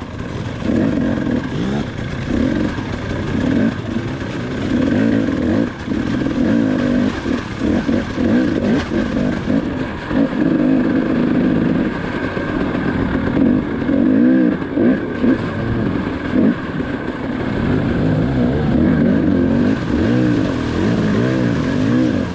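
KTM 300 XC-W two-stroke dirt bike engine, the throttle blipped again and again so the revs keep rising and falling, as the bike picks its way over rocks in a creek bed.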